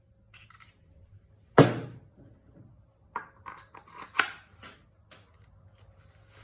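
Aerosol lubricant spray can squirting into a lawn mower wheel's hub: one loud burst about one and a half seconds in, then several short quick squirts and clicks.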